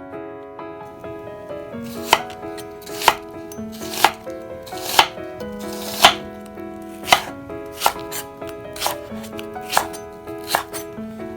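Knife chopping on a cutting board, about ten sharp cuts roughly one a second starting about two seconds in, over soft background piano music.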